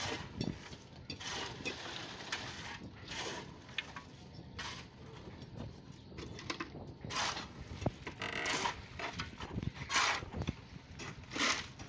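Wet concrete being tipped from a bucket and scraped and spread into wooden stair formwork: a run of irregular rough scrapes and rubs, with several louder ones in the second half.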